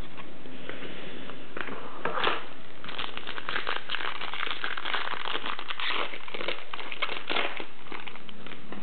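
Foil wrapper of a 1998-99 Flair Showcase basketball card pack being torn open and crinkled by hand. There are a few scattered crackles at first, then dense crinkling from about three seconds in that thins out near the end.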